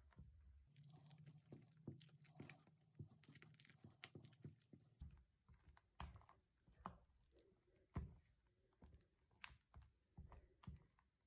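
Faint, irregular soft taps and scrapes of a spatula against a glass bowl as cream cheese mixture is folded into whipped cream by hand.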